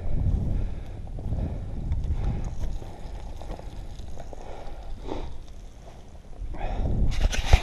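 Wind buffeting the microphone in gusts, easing off midway, followed near the end by a quick series of sharp crunches and clicks.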